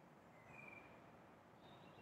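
Faint songbird calls, a short whistled note about half a second in and thin high chirps near the end, over a low steady hum of city noise.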